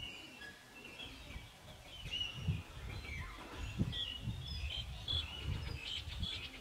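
Birds chirping in many short, high notes, busier in the second half, over a low, irregular rumble.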